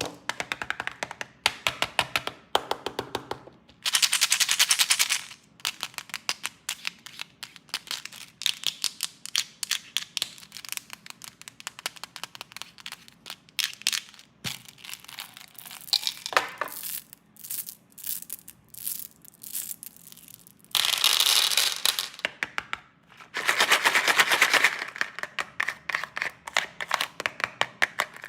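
Plastic snack wrappers being handled and unwrapped: rapid runs of sharp crinkling crackles, with a few longer, louder rustling bursts, one about four seconds in and two near the end.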